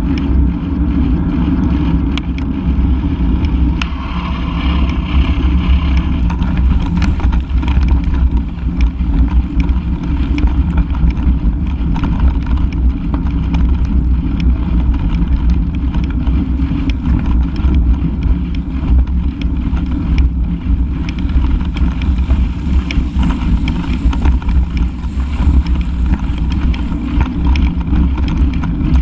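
Rumble and wind buffeting on a camera mounted on a mountain bike being ridden over dirt tracks, with frequent small knocks and rattles as it jolts over the rough ground.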